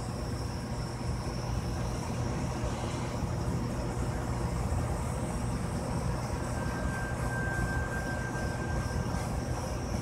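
Handheld heat gun running steadily, its fan pushing a constant rush of hot air with a low hum underneath. A faint thin whistle comes in a little past halfway and fades near the end.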